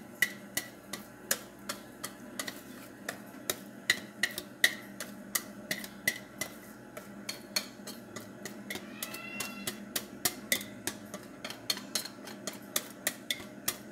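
Cake batter being scraped out of a mixing bowl into an aluminium tube pan: a quick, slightly uneven run of sharp clicks from utensil on bowl, about two or three a second. A short squeak rises and falls about nine seconds in.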